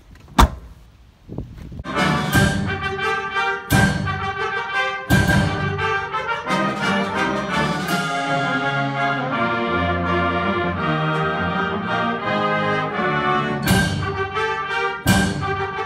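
A car door shuts with a single sharp bang about half a second in. Then orchestral music with brass starts about two seconds in, with heavy hits every second or two at first and again near the end.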